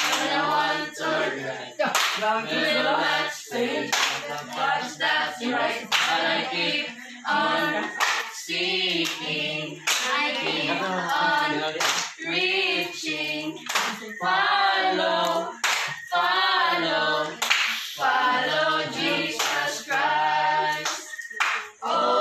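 A group of voices singing unaccompanied, with sharp hand claps about every two seconds.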